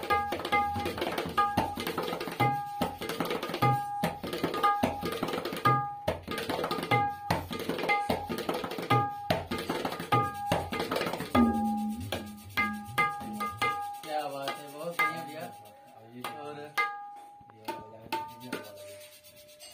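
Tabla pair played by hand: quick strokes on the dayan ring at one clear pitch over deep strokes on the bayan, one of which bends down in pitch about eleven seconds in. After that the playing thins to sparser strokes with wavering bass glides, and the last few strokes ring at a lower pitch and fade.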